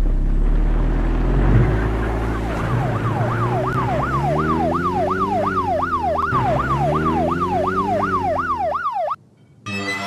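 Police siren in a fast yelp, sweeping up and down about three times a second, starting a couple of seconds in over a low vehicle hum. It cuts off abruptly near the end, and after a short silence a different buzzy tone starts.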